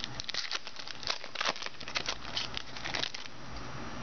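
Trading cards and their packaging being handled: a quick run of crinkling and rustling, stopping a little over three seconds in.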